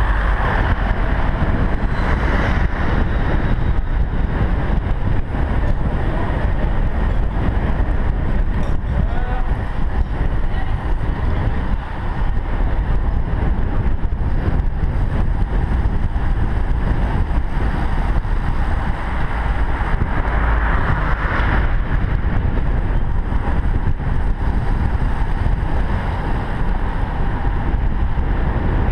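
Wind rushing over a helmet-mounted camera's microphone on a moving road bike: a steady, loud rumble.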